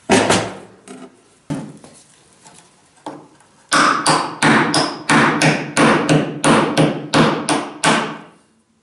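Hammer blows on a hand plane's wooden tote held on a wooden workbench. A single loud strike opens it and a few lighter, scattered knocks follow. Then comes a steady run of about a dozen sharp blows, roughly three a second, stopping shortly before the end.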